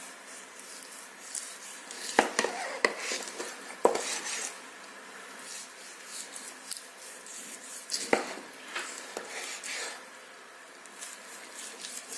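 Cooking utensils knocking and scraping against cookware: a few sharp clicks and clinks over a low background hiss.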